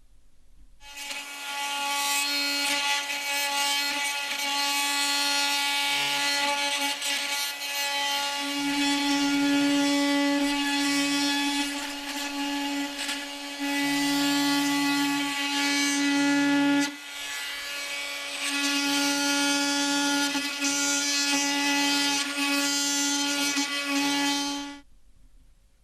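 Bosch GOP 250 CE 250-watt oscillating multi-tool running with a steady high hum, its loudness rising and falling as the blade is worked against the material. It eases off briefly about two-thirds of the way through, picks up again, then stops near the end.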